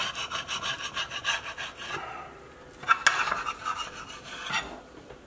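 A knife blade scraping across a plate in quick repeated strokes, pushing sweetcorn topping around, for about two seconds, with another short scrape about three seconds in.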